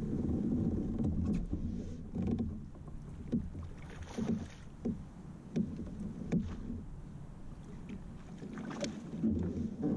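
Lake water lapping and slapping against a plastic fishing kayak's hull, with small irregular knocks every half second to a second.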